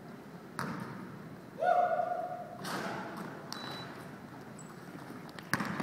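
Basketball play on a hardwood gym court: a few thuds of the ball and feet, and a loud, steady squeak lasting almost a second about a second and a half in, with faint short squeaks later.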